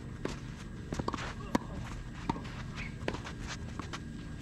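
Tennis rally on a clay court: footsteps shuffling and scuffing on the clay, with several sharp knocks of the ball off racket and court. The loudest is a racket strike right at the end.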